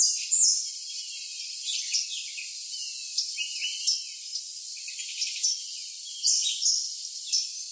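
A steady chorus of crickets with a continuous high trill, and songbirds giving short chirps and quick gliding whistles scattered through it. The sound is thin and high, with nothing low in it.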